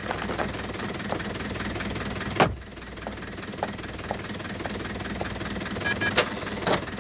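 Car engine idling steadily, with one loud thud about two and a half seconds in and two sharper knocks near the end.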